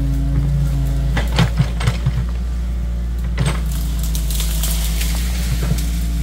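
Crawler excavator's diesel engine running under steady hydraulic load while the bucket tears a stump and roots out of the ground, with a cluster of sharp cracks and knocks of breaking wood about a second in and another near the middle, and a rise of hiss in the second half.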